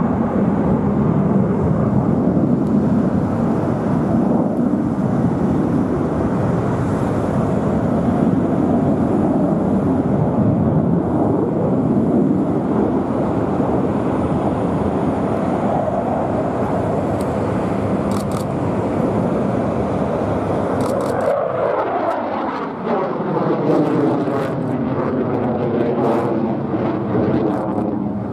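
Jet noise from a HAL Tejas light combat aircraft's single turbofan engine flying a display, loud and continuous. About 21 seconds in, the jet sweeps past close by: its pitch falls, and a wavering, phasing sound follows as it pulls away.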